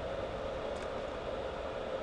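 Steady background hiss, strongest in the middle range, with a faint click about a second in.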